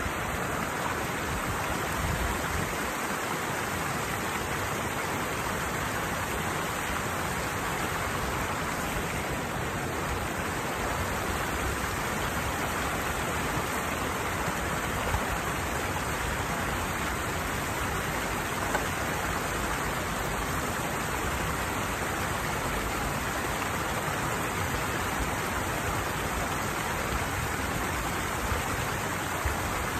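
Water pouring steadily over a small weir into a channel, a constant rushing hiss, with a couple of brief ticks about halfway through.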